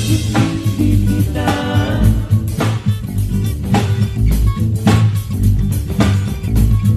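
Music with guitar, bass and a steady drum beat.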